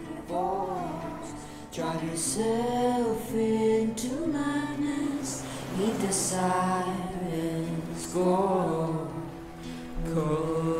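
Music with a singing voice, most likely a woman's: slow phrases that swell and glide up and down, a new one starting about every two seconds, over a held low note.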